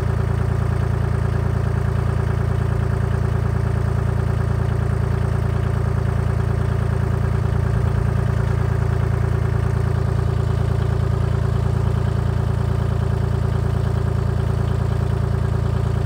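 Kubota tractor's diesel engine running steadily at an even speed, deep and unchanging with no revving.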